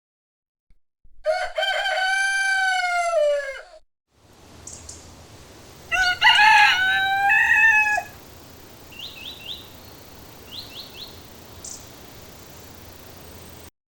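Rooster crowing twice. The first is a long cock-a-doodle-doo about a second in, dropping in pitch at the end. The second is shorter, around six seconds in, over a steady background hiss. A few faint, quick, high chirps follow.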